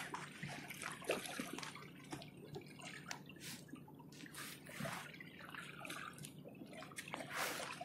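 Water trickling and dripping with small irregular splashes, faint throughout.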